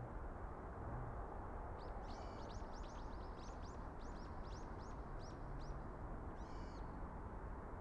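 A small bird calling a rapid series of short, high, downslurred chirps for about four seconds, with another brief burst near the end, over steady low background noise.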